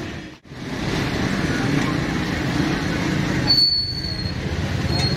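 Steady street traffic noise, with a short high-pitched squeal about three and a half seconds in and a briefer one near the end.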